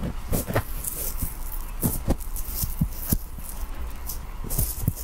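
Fingertips tapping and rubbing on a towel close to the microphone: irregular soft taps mixed with scratchy cloth rustles.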